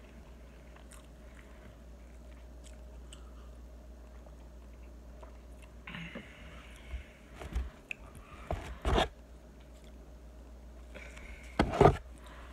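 Close-up eating and food-handling noises: quiet chewing at first, then from about six seconds in a run of scrapes and knocks, the loudest near the end, as food is picked out of a foam takeout container.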